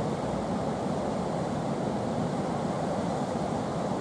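Steady rush of white water churning through a slalom course, an even, unbroken roar with no single splashes standing out.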